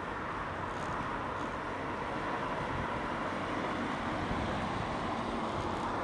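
Steady engine and traffic noise, an even hum and rumble with no distinct events.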